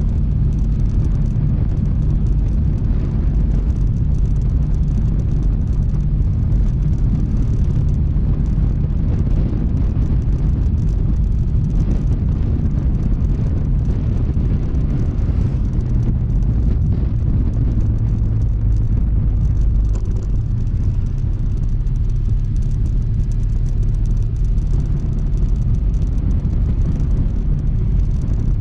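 Honda ADV160 scooter under way: its single-cylinder engine droning steadily under a heavy low rumble of wind and road noise.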